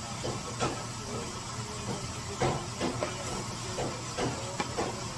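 Steady hiss over a low hum, with irregular knocks and clatter of work.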